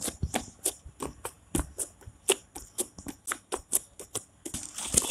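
Fingers poking into and pulling out of glittery slime, making quick sticky clicks and pops about four times a second. Near the end it turns into a denser squishing.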